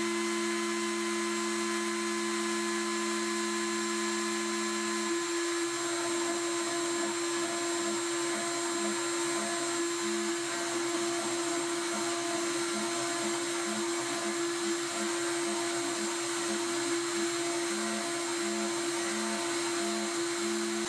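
CNC milling spindle running at speed with a steady high whine while a tapered engraving cutter pockets text half a millimetre deep into a plastic pipe on a rotary fourth axis. Under it a lower machine hum is steady for about five seconds, then breaks into short repeated pulses about twice a second as the machine makes short pocketing moves.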